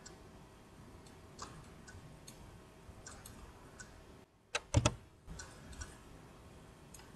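Computer mouse button clicks: faint scattered clicks, with a louder quick pair of clicks about halfway through.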